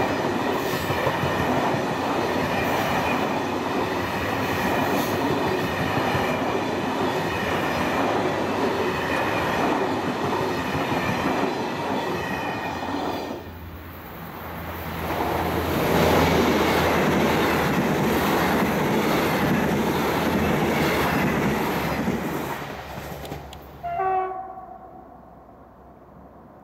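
Passenger coaches rolling past close by, with steady wheel-on-rail noise. After a break, a diesel train passes close and loud, then moves off, giving a short horn blast about 24 seconds in before fading away.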